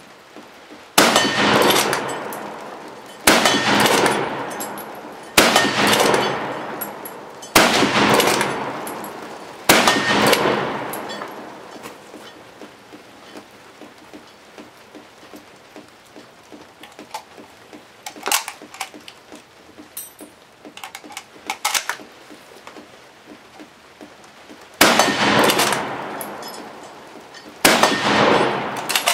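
.303 Lee Enfield bolt-action rifle fired rapidly at a steel gong. Five shots come about two seconds apart, each with a long echoing decay and a clang. Then there is a pause of small metallic clicks as the rifle is reloaded from stripper clips, and two more shots near the end.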